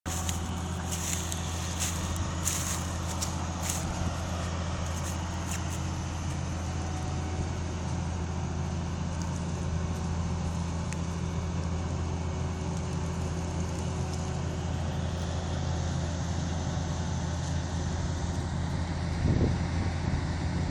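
John Deere combine harvester running steadily with a deep engine drone while harvesting corn. Sharp ticks come through in the first few seconds, and a brief louder knock sounds near the end.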